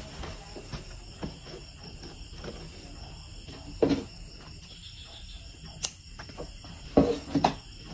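Cloth rustling and a few light clicks as a blue skirt and its zipper are handled at a sewing machine, over a faint steady high-pitched whine. Two louder short sounds come near the end.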